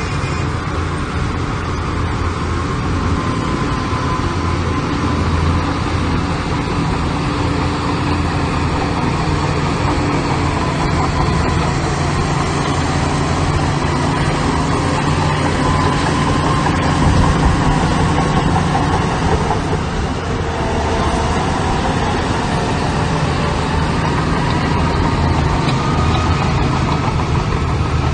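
Diesel engines of heavy earth-moving machinery running steadily, with a brief rise in level about two-thirds of the way through.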